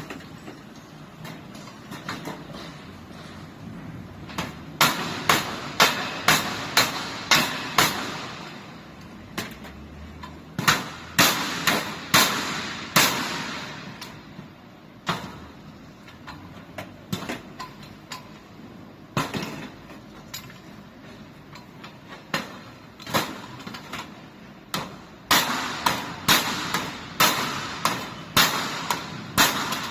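Repeated sharp knocks on a metal rolling shutter door during repair, as if struck with a hammer. They come in runs of about two strikes a second, with pauses between the runs.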